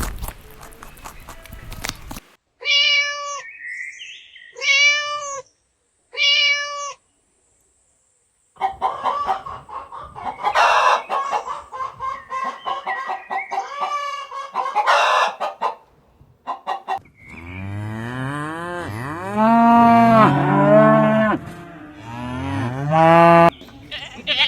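A run of different animal calls cut one after another. It starts with about two seconds of clattering noise, then three short arched calls, then a stretch of mixed, noisy calls, and ends with a series of deeper calls that glide up and down in pitch.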